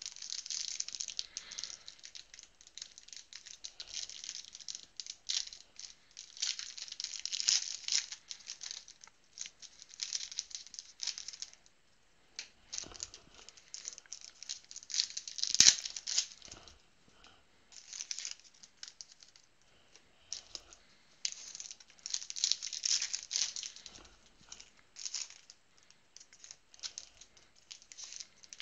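Trading cards being handled and sorted: cards and wrappers slide and flick against each other in bursts of light rustling and crinkling, with one sharp click a little past halfway.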